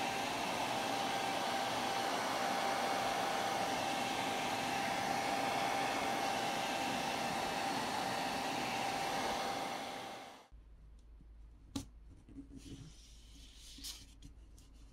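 Hair dryer blowing steadily with a constant whine, heating a phone's back plate to soften the adhesive underneath. It switches off and winds down about ten seconds in, followed by a few faint clicks and taps.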